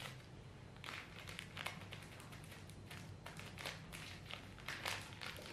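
Faint crinkling and light clicking of a small plastic packet of salt being handled and squeezed open over a stone mortar.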